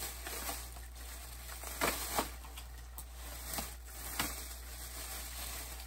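Handling noise from a shirt being held and moved: a few short rustles and knocks over a steady low hum.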